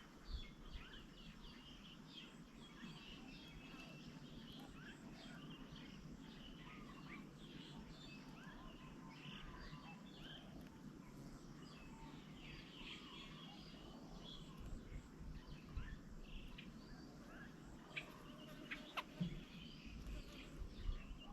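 Birds chirping and calling faintly, with many short calls over a low, steady background hum; a few sharp clicks near the end.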